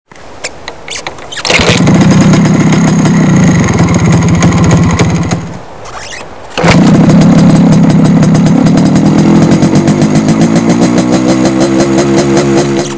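MZ ETZ 150's single-cylinder two-stroke engine being kick-started in the cold: it catches about a second and a half in, runs for about four seconds and dies, then catches again on the next kick and keeps running, its pitch climbing in the last few seconds.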